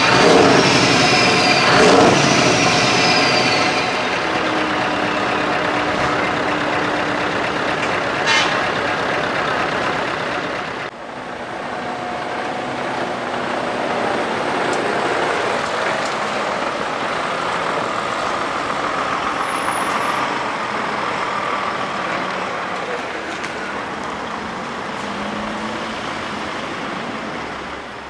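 Heavy trucks running and driving past, with short horn toots and a brief air-brake hiss. The sound breaks off abruptly about eleven seconds in and resumes with another passing truck.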